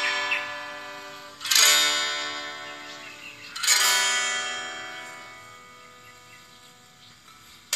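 Background music: plucked-string chords ringing out, three chords about two seconds apart, each fading slowly. A new tune of quick plucked notes starts abruptly at the very end.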